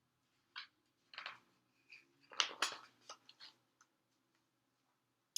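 Faint rustling of a picture book's paper pages being handled and turned: a few short rustles and ticks, the loudest about two and a half seconds in.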